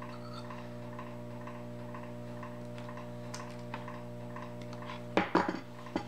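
Steady electrical hum from a Lincoln SP250 MIG welder switched on, with light ticking about three times a second while wire and shielding gas are run through the gun to purge it. About five seconds in, a short metallic clatter as pliers are set down on the bench.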